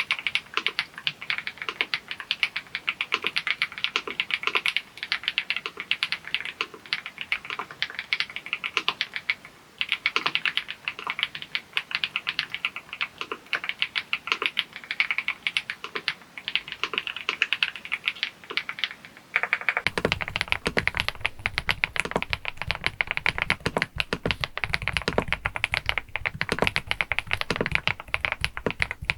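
Fast, continuous typing on an EPOMAKER TH99 PRO mechanical keyboard, with a rapid run of pebble-like clacking keystrokes. About twenty seconds in, the keystrokes take on a deeper, fuller low end.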